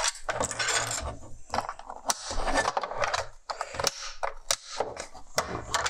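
Irregular clicks, taps and scraping of small tools on hard plastic parts, as the coin-cell battery holder inside a car heater's plastic case is worked at by hand.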